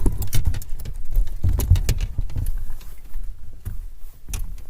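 Footsteps: irregular steps with sharp clicks and knocks over a low rumble.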